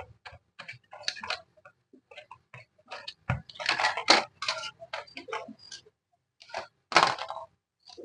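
Irregular sharp clicks and short clattering rattles of small parts being handled during a TV main board swap, louder in clusters about four seconds in and again near seven seconds.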